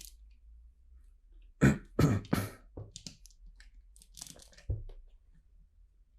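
A man coughing or clearing his throat in three quick bursts about one and a half seconds in, followed by small clicks of plastic LEGO pieces being handled.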